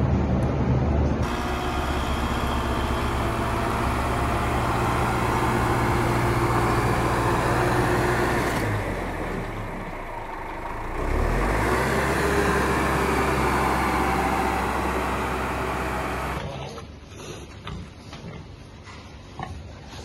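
Tractor engine running steadily with a tractor-drawn lavender harvester working behind it; the sound dips briefly midway and comes back. Near the end it gives way to a quieter barn with scattered clicks.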